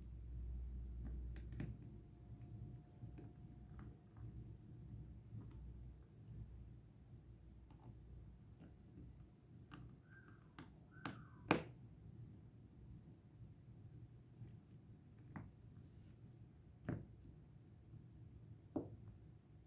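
Faint, scattered small clicks and taps of hand tools on a Casio BGA-152 wristwatch during a battery replacement, with a few sharper clicks in the second half.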